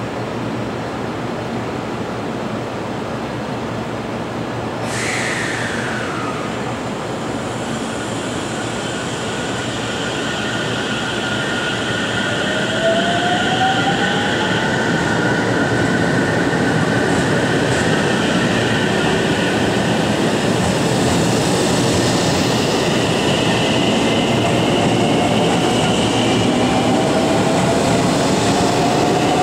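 JR Central 313 series electric multiple unit pulling out of the platform and gathering speed. After a brief falling tone about five seconds in, its motors set up a whine that climbs steadily in pitch and grows louder as the train accelerates past.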